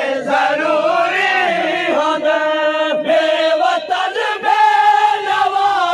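A crowd of men chanting a Muharram noha (mourning lament) together, loud and sustained, their voices holding long wavering notes.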